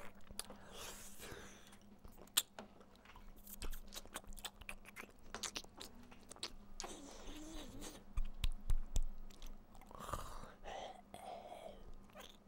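Close, wet mouth sounds of a man's lips sucking and smacking on fingers held at his mouth: many irregular clicks, with a soft hum about seven seconds in and low murmurs near the end.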